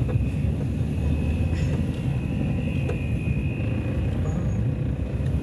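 Car running, heard from inside the cabin while driving slowly along town streets: a steady low engine and road rumble, with a faint thin high whine over it.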